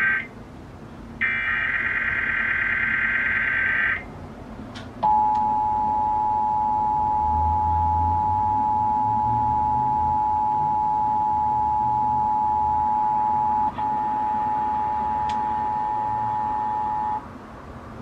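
Emergency Alert System broadcast through a TV speaker: the last SAME header data burst, a warbling digital screech of about three seconds, ends about four seconds in. A second later the EAS two-tone attention signal (853 and 960 Hz together) starts and holds steady for about twelve seconds, with a brief stutter partway through, then cuts off near the end.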